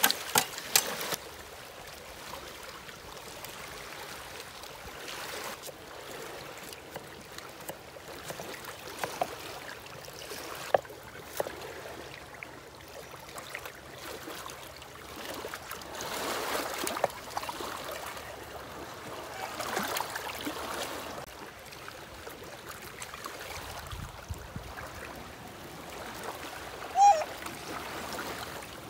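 Water running and splashing, with a few sharp knocks in the first second and a short high chirp near the end.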